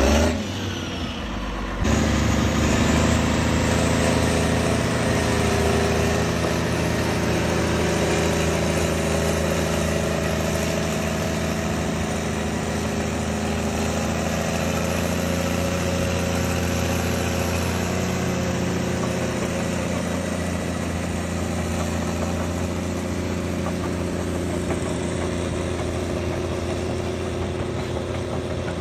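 Caterpillar C9 inline-six diesel engine running steadily at a constant speed, humming. It comes in louder about two seconds in.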